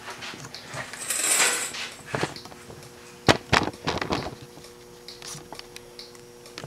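A rustling scrape about a second in, then a few sharp, irregular clicks and knocks, with a faint steady hum underneath.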